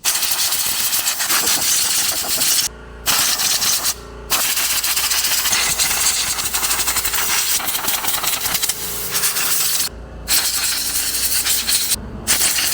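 Compressed-air blow gun blasting water off a freshly washed road bike: a loud hiss in several long blasts with brief pauses between them.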